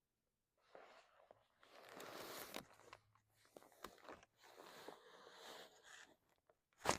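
Faint rustling and shifting of a body and clothing during a chiropractic adjustment, with a few small clicks and one sharp crack near the end, the loudest sound.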